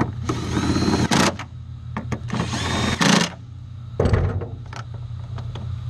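A cordless power drill or driver runs twice in short bursts, its whine rising and then holding, as nuts are run down on the tail light seals. A brief clatter follows about four seconds in, over a steady low hum.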